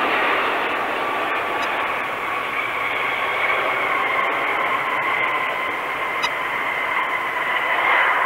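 Jet engines of a landing Boeing 757 freighter during touchdown and rollout: a steady rush of noise carrying a whine at two pitches that sinks slightly.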